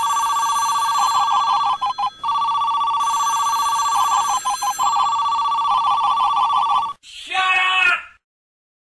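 Telephone ringing: a rapidly warbling two-tone ring that goes on for about seven seconds with a couple of short breaks, followed by a brief voice just before the sound cuts to silence.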